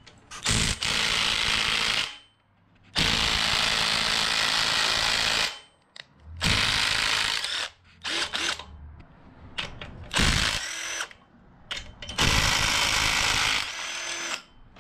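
Bauer cordless drill spinning a socket to back out the bolts that hold the engine stand's mounting bracket to the engine block, in about five runs of half a second to two and a half seconds with short pauses between.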